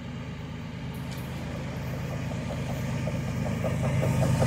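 Diesel locomotives at the head of a BNSF freight train approaching. The low engine rumble grows steadily louder as the train nears.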